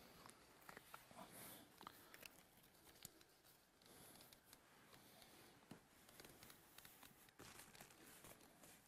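Near silence, with faint rustling and crinkling of adhesive tape and roofing underlay membrane being handled and smoothed down by hand, and a few soft scattered clicks.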